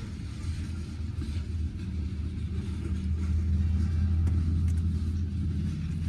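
Low, steady rumble of a slow-moving freight train's covered hopper cars rolling past, heard from inside a car; it grows louder about halfway through.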